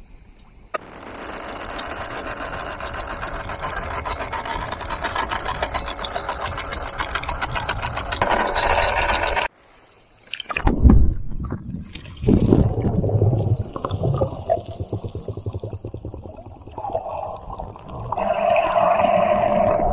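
Water rushing and sloshing around a camera held at and under the surface; the steady rush cuts off abruptly about halfway, followed by muffled underwater knocks and gurgles.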